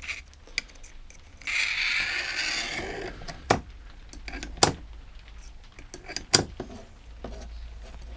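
A chainsaw guide bar's groove being cleared out with a thin tool: a scraping stroke about a second and a half in, then three sharp taps.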